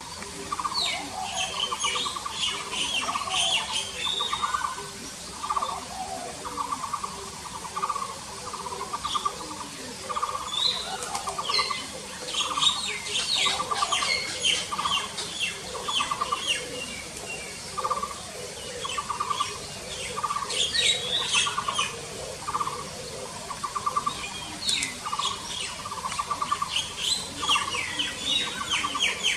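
Woodland birds calling: one bird repeats a short, low, pulsing note at a steady pace, about once every 0.7 seconds, while smaller birds chirp and trill in high bursts over it.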